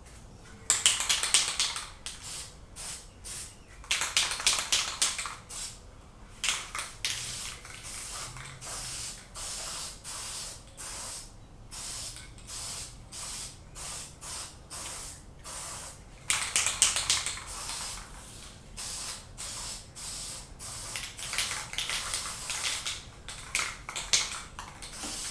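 Aerosol can of Krylon camouflage khaki spray paint hissing in many short bursts, with a few longer sprays of about a second, as a base coat is touched up.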